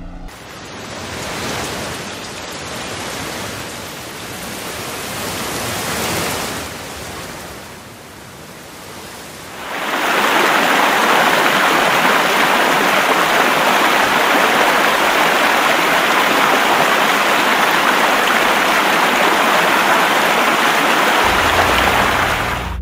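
Heavy rain pouring down, rising and falling. About ten seconds in it gives way to the loud, steady rush of water pouring through a dam's open spillway gates.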